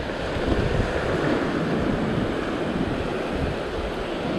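Surf washing over a flat sandstone rock shelf, a steady rushing of foaming water, with wind buffeting the microphone.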